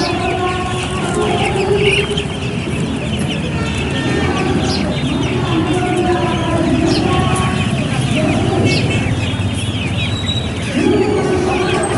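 Many caged chicks cheeping rapidly and continuously, with chickens clucking among them, over a steady background din.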